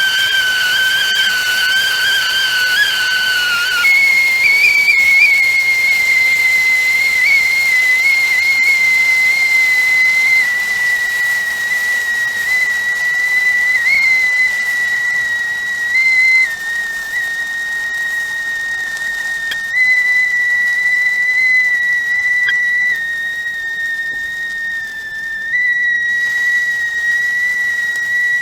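Teapot whistling at the boil: a steady whistle tone over hissing steam. About four seconds in, the whistle changes pitch from a two-note sound to a single tone, which then holds with small wavers and steps in pitch.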